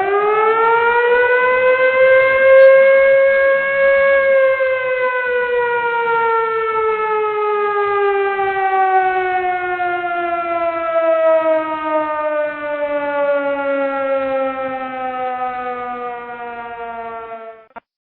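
Air-raid siren winding up to a wailing pitch over the first few seconds, then slowly winding down over more than ten seconds before cutting off near the end.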